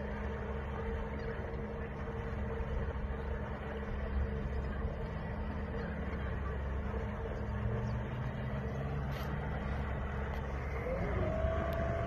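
An engine running steadily, a continuous drone with a low rumble. About eleven seconds in, a higher steady note glides up and holds.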